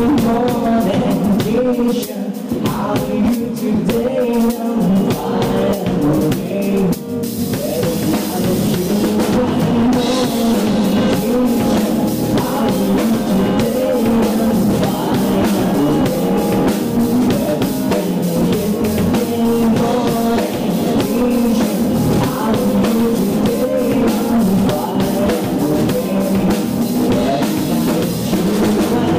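Live rock band playing: Tama drum kit, electric bass and two electric guitars together, loud and steady.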